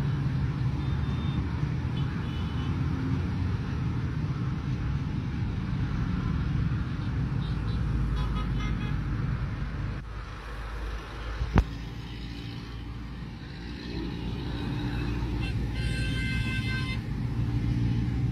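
Steady city street traffic, motorbikes and cars running, with a single sharp click about two-thirds of the way through and a short horn toot near the end.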